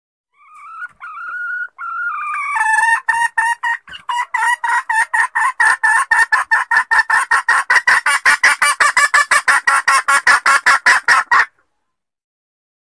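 Junglefowl hen calling: a few drawn-out, whiny notes, then from about two and a half seconds in a fast run of clucks, about four or five a second, that cuts off abruptly near the end. This is the hen's call used as a lure to draw wild junglefowl cocks out of cover.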